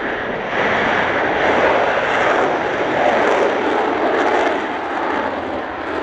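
F-4EJ Kai Phantom's twin J79 turbojets running in full afterburner on takeoff: a loud, steady jet roar that swells about half a second in as the fighter lifts off and climbs away.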